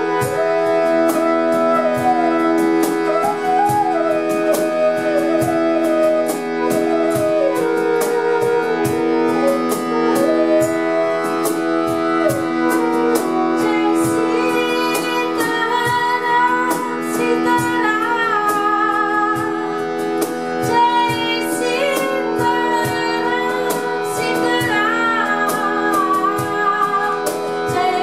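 Bamboo bansuri flute playing a slow, wavering melody over a steady drone, with a light, regular tapping beat; the melody climbs higher about halfway through, and a woman's singing voice comes in near the end.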